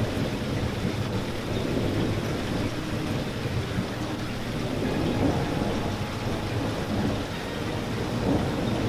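Steady rain falling, a dense even patter with a continuous low rumble underneath.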